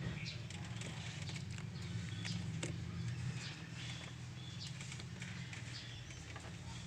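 Scattered light clicks and taps of hands working on a car's engine-bay wiring, over a steady low hum, with birds chirping now and then.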